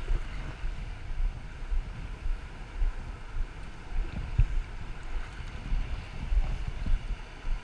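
River water rushing around a kayak running a rapid, with irregular low rumbles of wind buffeting the microphone.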